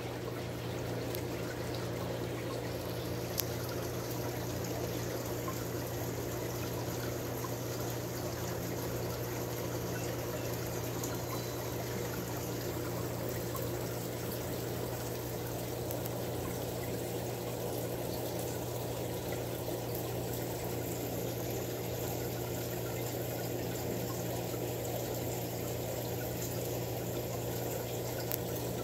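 Aquarium water trickling and pouring steadily over a low, even hum, the tank's circulation running.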